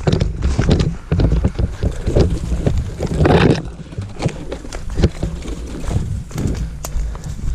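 Footsteps and the knock and rattle of carried gear as a player moves on foot, with wind and handling rumble on the body-worn microphone.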